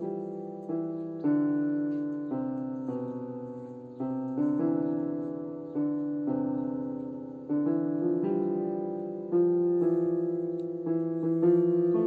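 Background piano music: slow, gentle notes struck one after another, each left to fade.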